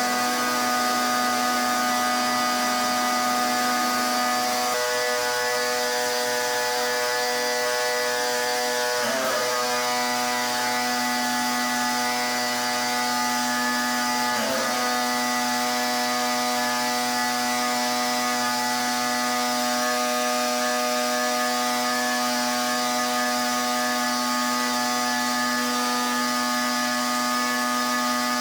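Pressure washer running steadily: a droning whine over a constant hiss of spray. The tone dips briefly twice, about a third of the way in and near the middle.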